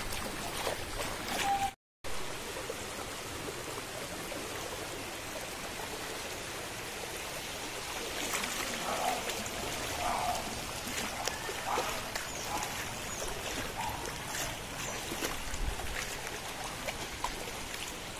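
Floodwater flowing through a flooded street, a steady rushing wash. The sound cuts out completely for a moment about two seconds in.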